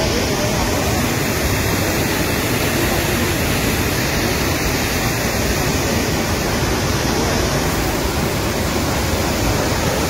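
Waterfall: a loud, steady rush of falling water that does not change.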